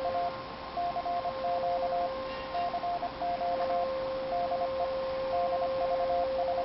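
Ham radio receiver playing a Morse code (CW) signal: a tone keyed on and off in short and long beeps, over two steady whistling carrier tones and static hiss.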